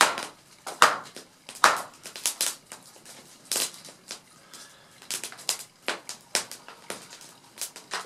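Open wood fire of sticks crackling, with irregular sharp pops that throw sparks.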